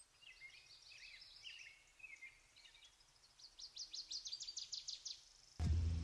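Small songbirds chirping faintly, then one bird giving a fast trill of about nine notes a second that stops around five seconds in. A much louder sound cuts in just before the end.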